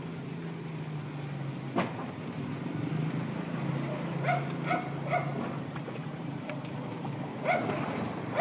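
A small dog yapping in short bursts, three quick yaps about four seconds in and another near the end, over a steady low hum, with a single knock about two seconds in.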